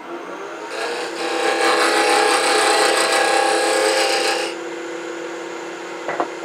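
A Powermatic wood lathe runs with a steady hum while a parting tool cuts a tenon into the end of a spinning wooden handle blank. The cut is a loud scraping hiss for about four seconds, then the lathe runs on alone, with two short clicks near the end.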